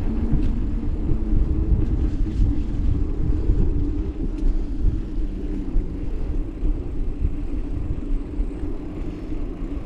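Steady low rumble of wind buffeting the microphone and tyres rolling while riding a mountain bike, with a few faint clicks.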